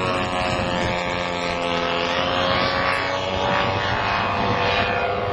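Radio-controlled scale Dornier Do 335 model flying a low pass and climbing away, its push-pull twin engines and propellers running with a steady drone at high throttle.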